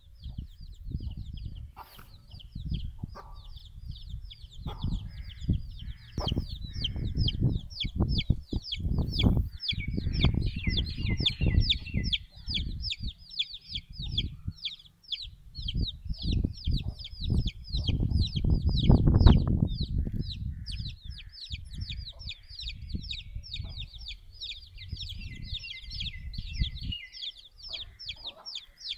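Domestic chicks peeping: a constant run of short, high cheeps, several a second. Underneath is a low rumbling noise that swells and is loudest about two-thirds of the way through.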